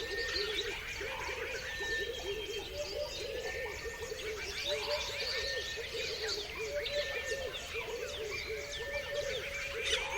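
A dense chorus of many birds chirping and calling at once, with quick sweeping high chirps over a busy lower layer of rapid notes, and one short steady whistle that repeats every second or two.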